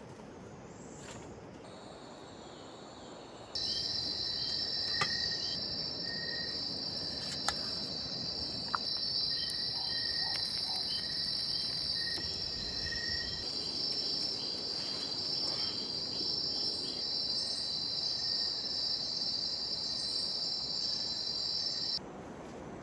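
Rainforest insects trilling in a steady, high-pitched chorus, with fainter intermittent chirps underneath. The chorus starts abruptly a few seconds in and cuts off just before the end.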